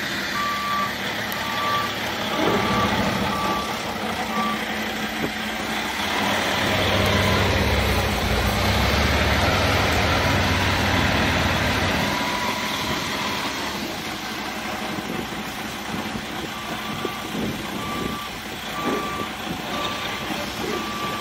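A Sterling hook lift truck's Series 60 Detroit diesel running, growing louder and deeper for several seconds in the middle. A backup-style warning beeper sounds about once a second at the start and again near the end.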